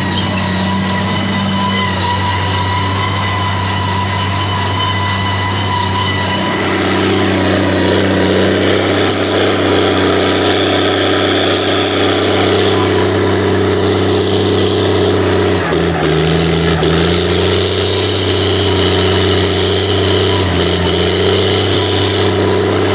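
Valtra 1780 tractor's diesel engine running steadily under load while pulling a heavy 14x34 disc harrow. Its drone gets a little louder and fuller about six seconds in.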